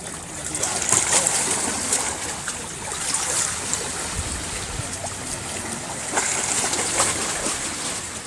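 Sea waves washing and splashing against shoreline rocks, swelling in surges about a second in, around three seconds and again near seven seconds.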